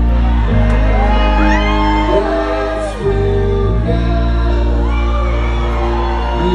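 Live band playing, with singing over sustained guitar and bass chords, heard from the audience in a large hall.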